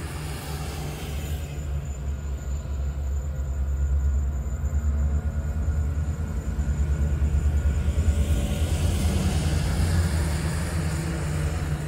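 Diesel locomotives of a freight train running with a steady low rumble, growing louder a few seconds in.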